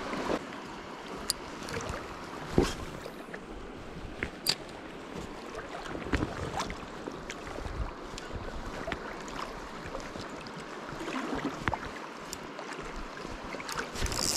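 Swollen, fast-flowing creek rushing steadily, with several short sharp clicks and knocks scattered through it, the loudest about two and a half seconds in.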